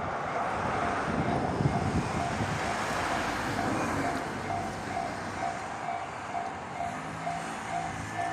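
Level-crossing warning bell dinging about two to three times a second while a train runs through the crossing, its running noise loudest in the first few seconds and easing off.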